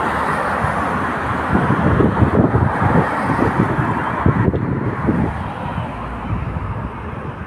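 Wind buffeting a phone microphone while riding across a road bridge, over the hiss of passing road traffic. The steady hiss drops away about four and a half seconds in.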